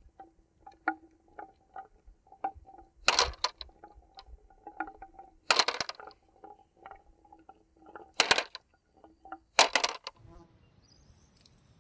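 Marbles rolling and clicking down a marble run track: a steady run of small ringing clicks, broken four times by a loud clatter of marbles. The clicks stop about ten seconds in.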